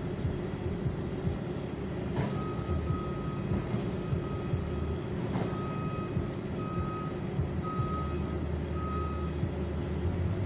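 Skid steer's diesel engine running while its backup alarm beeps steadily, about once a second, as it reverses away from the dump truck. Two sharp knocks sound, one about two seconds in and one near the middle, when the loader starts its beeping and while it works at the truck.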